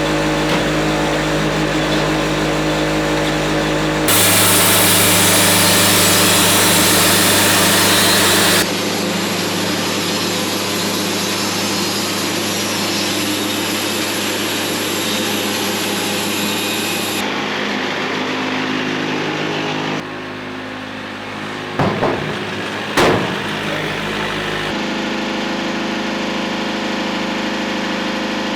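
Sawmill engine running steadily while the mill saws through a log, heard in several spliced stretches. The cutting hiss is loudest from about four to eight seconds in, and two sharp knocks come near the end.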